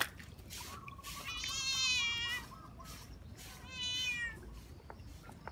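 Wet tabby cat meowing twice while being bathed in a basin of water: a long, wavering meow about a second in, and a shorter one near four seconds.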